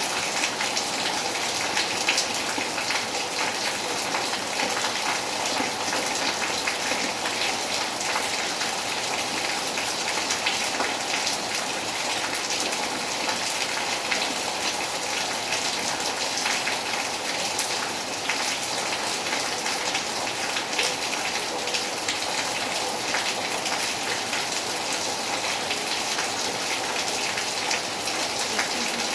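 Steady summer rain falling, a constant hiss of rain with many fine drops pattering on surfaces.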